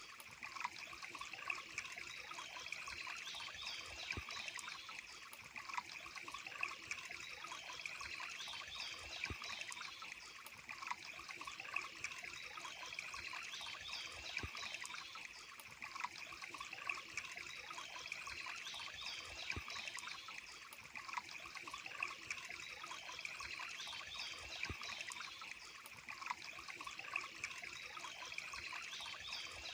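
Water trickling and splashing steadily, a small stream or cascade.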